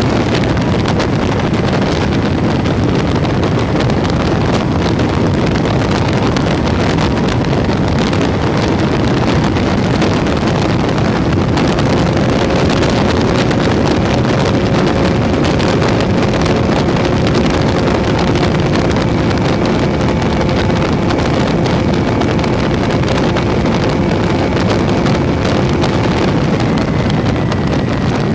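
Onboard sound of an MPX Tucan RC airplane in flight: steady wind rush over the phone's microphone, with a faint steady hum from the motor and propeller whose pitch shifts near the end.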